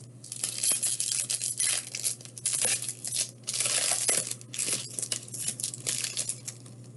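Wrapping on a pack of baseball cards being torn open and crinkled by hand: irregular tearing and rustling in short spells.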